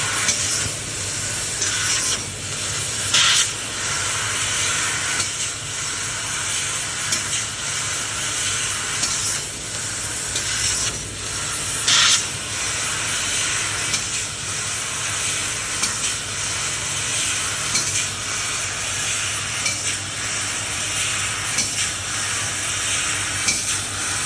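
Laser cutting machine cutting stainless steel: a steady sizzling hiss over a low machine hum, with brief louder bursts about three seconds in and again about twelve seconds in.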